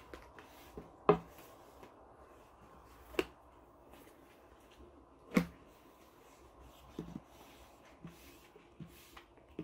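A long, thin wooden rolling pin knocking on a wooden pastry board as a thin sheet of dough is rolled out. Three loud knocks come about one, three and five seconds in, with softer taps later.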